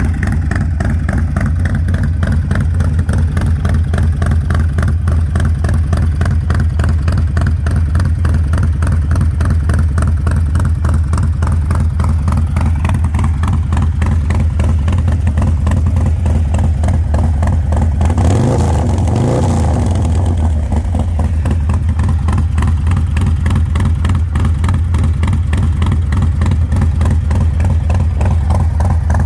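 2021 Harley-Davidson Street Glide's big-bore 124-cubic-inch Milwaukee-Eight V-twin idling through a 2-into-1 side-dump exhaust, with one brief rev about two-thirds of the way through.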